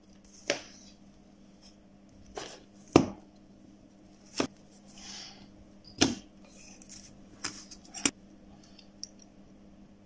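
Sharp, irregular clicks and taps of small phone parts as fingers press a smartphone's circuit board and battery into its open frame, about seven in all, the loudest about three seconds in.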